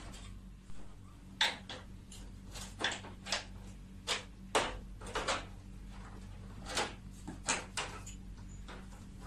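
Plastic clips and casing of a split-type air conditioner's indoor unit clicking and snapping as its front cover is pried loose with a flat screwdriver: about a dozen sharp, irregular clicks.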